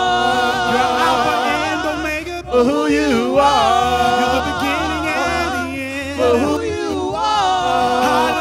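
Gospel praise team singing with keyboard accompaniment: long held notes and melismatic vocal runs with wavering pitch, without clear words.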